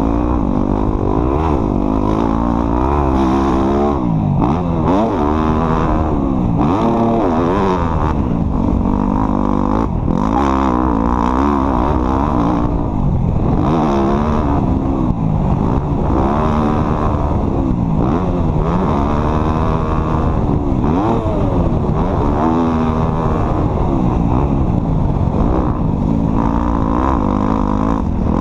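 Off-road vehicle's engine running hard, its pitch rising and falling every second or two as the throttle is opened and closed.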